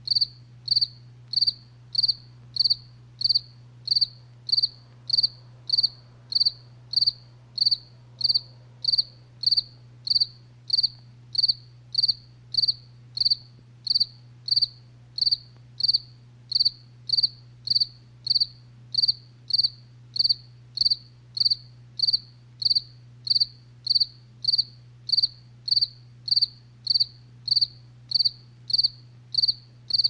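A cricket chirping at a steady, even pace, short high chirps about three every two seconds, over a low steady hum.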